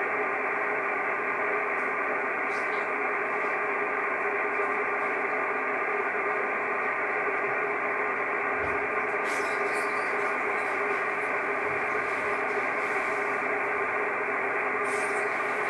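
Steady, muffled hiss of 6-metre band noise from a Kenwood TS-680S transceiver receiving single-sideband on 50.148 MHz. The receiver is open after a CQ call, and no station is answering.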